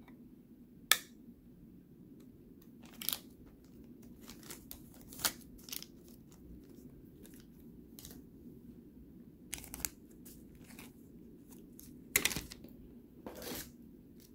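Trading cards and their plastic sleeves and cases being handled: scattered crinkles and rustles with a few sharp clicks, the sharpest about a second in and another pair near the end.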